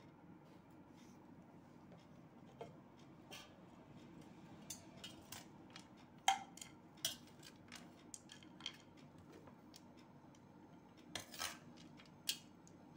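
Slotted steel spoon scraping and clicking against a stainless steel plate while scooping puffed-rice bhel onto a serving plate. Scattered sharp clicks, the loudest about six seconds in and again near the end.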